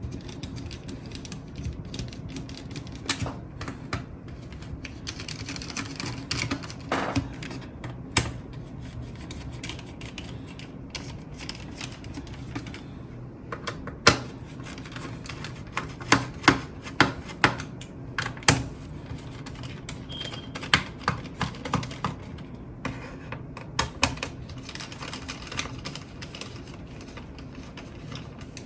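Irregular sharp clicks and taps of a screwdriver working the bottom-case screws of a laptop, with a cluster of louder clicks about halfway through.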